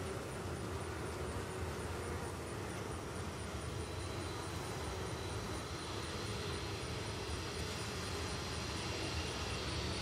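Steady droning hum of a honeybee colony crowding an open hive frame.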